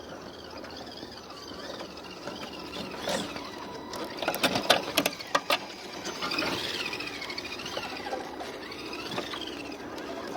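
Small electric motors and geartrains of RC scale rock crawlers whining, the pitch rising and falling with the throttle, with a burst of sharp clicks and knocks about four to five and a half seconds in.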